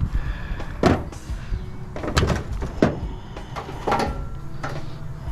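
Metal parts of a PTAC unit being handled during teardown: about five separate knocks and clanks, a few with a brief metallic ring.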